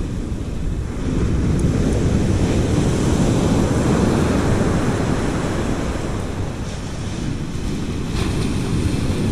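Ocean surf breaking and washing up the beach, with wind rumbling on the microphone; the wash swells about a second in.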